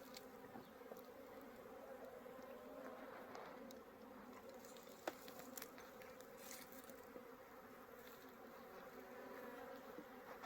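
Honeybees buzzing in a faint, steady hum, with a single click about five seconds in.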